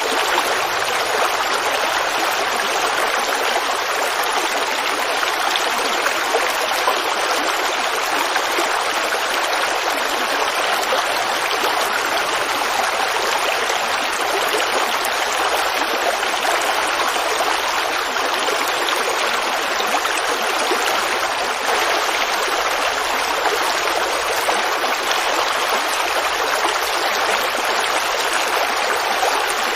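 Forest creek babbling over rocks, a steady rush of running water.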